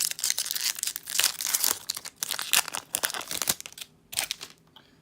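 Foil wrapper of a Pokémon booster pack being torn open and crinkled by hand: a dense run of crackling and tearing that dies away after about three and a half seconds.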